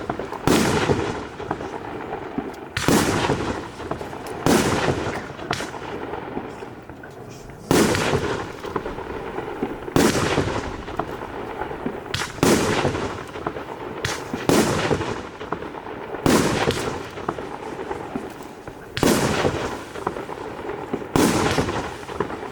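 Blackboxx 'Barbecue' 30 mm fireworks battery (EMP Serie F2) firing shot after shot: about ten loud bangs, one every one to three seconds, each with a clattering tail that dies away over a second or so.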